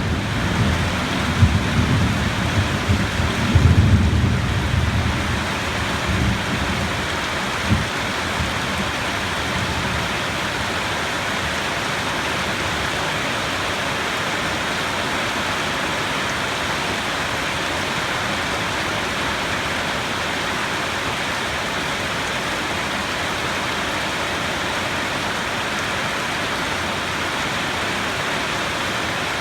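Steady heavy rainfall with thunder rumbling low through the first few seconds and dying away, then an even rain hiss with no more thunder.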